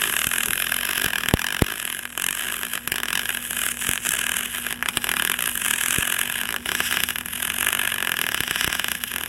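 Welding arc on an aluminium van roof frame, a steady crackling hiss with scattered sharp clicks, laying a tack weld; it starts just before and cuts off just after.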